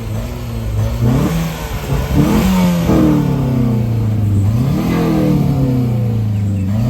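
A car engine revved in several short blips, the pitch climbing and falling back to a steady idle each time.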